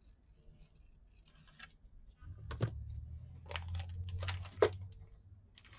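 Scissors cutting cardstock: a few faint scratches, then four or five sharp snips over a low hum.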